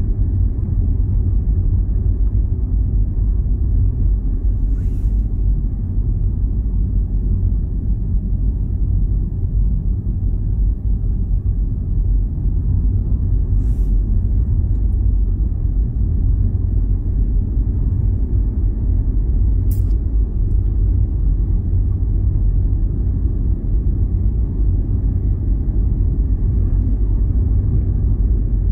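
Steady low rumble of wind buffeting the camera's microphone, with three faint brief clicks.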